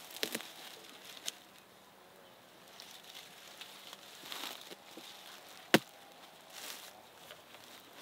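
Scattered sharp knocks, like chopping or cutting strokes, the loudest one a little past halfway, with a couple of short bursts of rustling between them.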